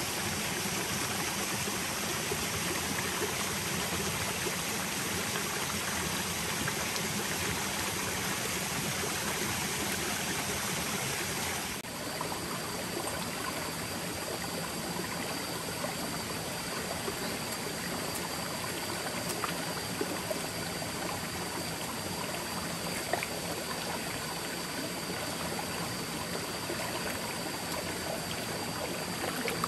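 Shallow, rocky forest stream flowing, a steady rush and trickle of water over stones.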